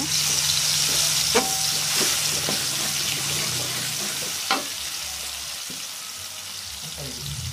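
Ground shallot, garlic and chilli paste sizzling in hot oil in a metal wok while it is stirred with a metal spatula. The spatula clicks sharply on the wok about one and a half and four and a half seconds in, and the sizzle slowly dies down.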